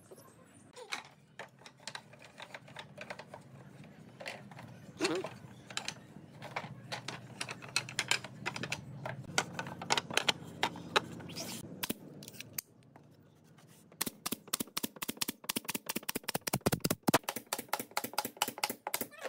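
Wooden boards clacking as they are laid and knocked into place on the floor frame, over a low hum. From about 14 s in, a pneumatic nail gun fires in quick succession, about six sharp shots a second, nailing down the pine floor boards.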